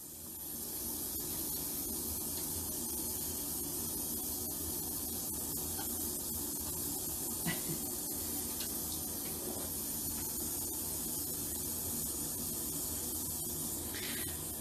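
Water running steadily from a handheld shower onto the floor of a shower stall: an even hiss throughout, with a couple of faint clicks around the middle.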